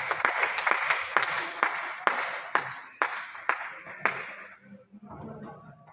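Hand clapping with murmuring voices in a sports hall. It starts at about three claps a second, then slows and dies away about four and a half seconds in.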